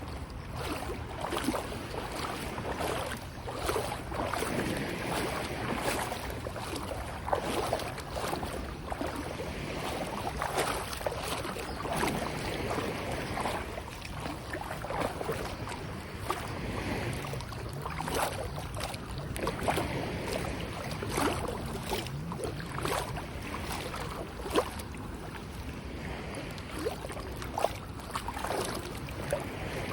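Sea water lapping and splashing: a steady wash with many small, irregular splashes.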